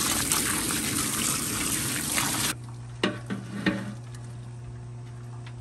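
Hose water spraying over live blue crabs in a cooler, a dense hiss that cuts off abruptly about two and a half seconds in. After it, a steady low hum with a few sharp knocks, as a perforated basket is handled in a boil pot.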